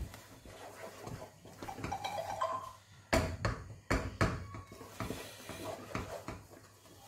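A wooden spoon stirring and scraping thick semolina-and-milk dough in a metal cooking pot, with several sharp knocks of the spoon against the pot about three to four seconds in.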